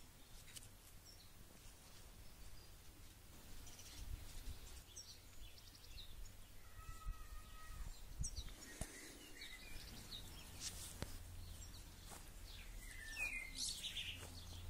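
Small garden birds chirping and calling now and then, faint, over a steady low rumble.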